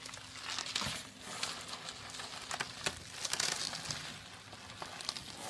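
Plastic bubble wrap crinkling and crackling as a small dog wriggles along the carpet inside it, with many scattered sharp crackles.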